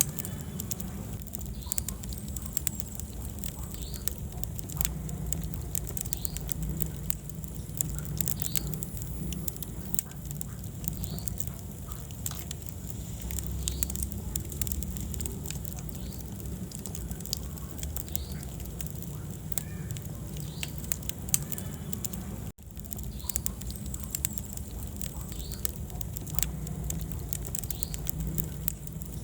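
Wood fire burning in a fireplace: a steady low rumble of flames with frequent irregular crackles and pops from the burning wood. The sound drops out for an instant about three quarters of the way through.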